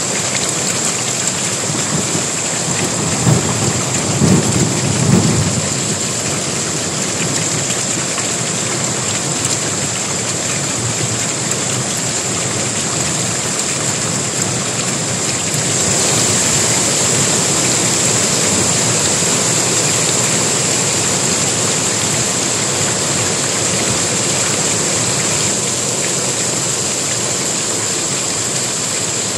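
Heavy rain pouring steadily, with a low roll of thunder rumbling about three to six seconds in. About halfway through the rain gets louder.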